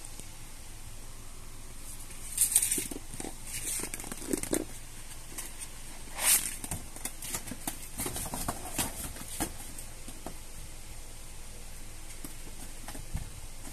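Cats scuffling at play on a hard floor: a scattered run of short rustles, scrapes and pats, loudest about two and a half and six seconds in, over a steady background hiss.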